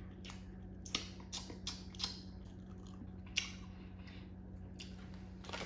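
A person chewing a hard pineapple-ring gummy candy, giving irregular short clicks and smacks every half second or so, over a low steady hum.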